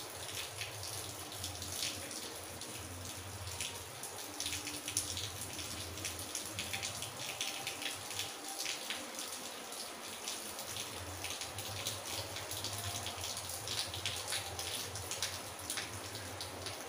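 Steady splashing and pattering of water with many small drop impacts.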